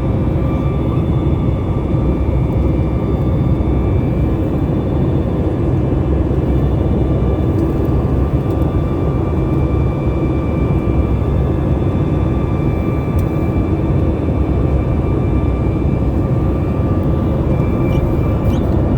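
Airliner jet engines running steadily, a dense low rumble with several constant whining tones above it.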